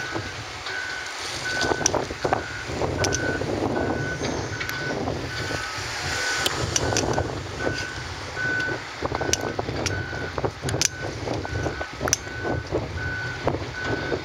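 Backup alarm on heavy construction equipment beeping steadily, a little more than once a second, over diesel engines running, with scattered clanks and knocks from the machinery and rock.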